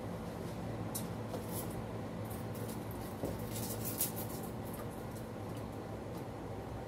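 Faint scratching, rustling and small clicks of hands handling small food items at a kitchen counter, over a steady low hum.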